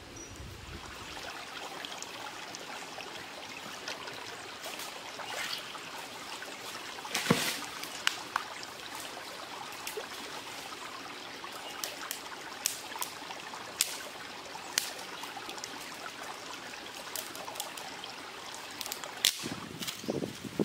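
A steady trickle of running water, with scattered sharp clicks and cracks as dry sticks and twigs are gathered and laid on stones. The loudest crack comes about seven seconds in.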